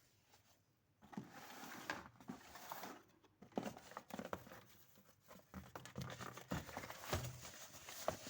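Hands handling packaging and a semi-mechanical keyboard: crinkling and rustling with scattered clicks and knocks, starting about a second in.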